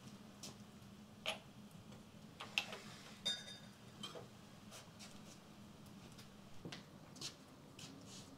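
Wood fire crackling in a barrel stove: scattered, irregular sharp pops and clicks. A short ringing clink of china about three seconds in.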